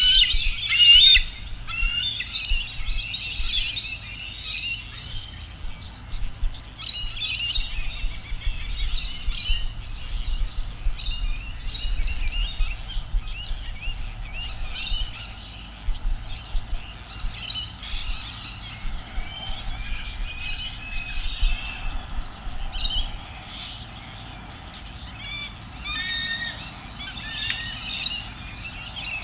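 A busy chorus of many small birds chirping and trilling, densest and loudest right at the start and thinning in places, over a steady low rumble.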